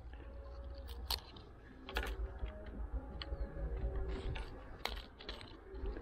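Scattered small clicks and taps of broken camera parts from a smashed GoPro HERO7 Black being handled, the sharpest about one, two and five seconds in.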